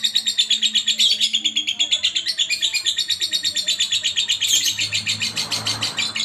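Lovebird in full song, a long unbroken run of rapid shrill chirps at about ten a second.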